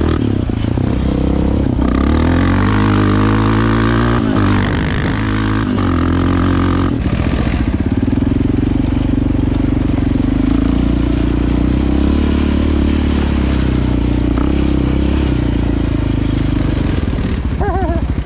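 Quad (ATV) engine running close by. It revs up and down a few times during the first seven seconds or so, then runs at a steady speed.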